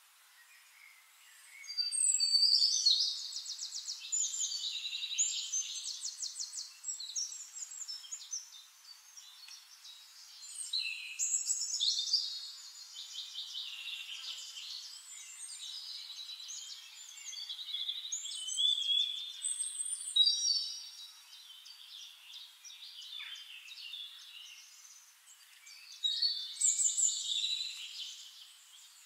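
Songbirds singing: rapid trills and chirps with quick pitch glides, coming in four long bouts of song with quieter gaps between.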